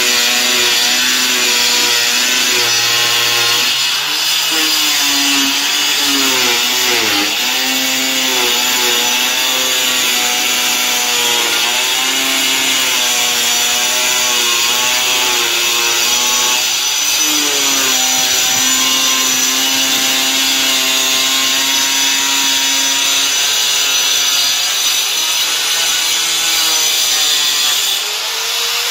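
Handheld angle grinder cutting through a 4 mm GRC fibre-cement board, its motor whine wavering and dipping in pitch as the disc loads in the cut. The sound briefly drops near the end.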